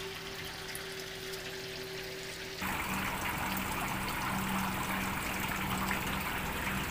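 Water falling in a thin stream from the holes of an evaporative air cooler into the shallow water of its tank, trickling and splashing steadily over the low, steady hum of the running cooler. The splashing gets louder and brighter about two and a half seconds in.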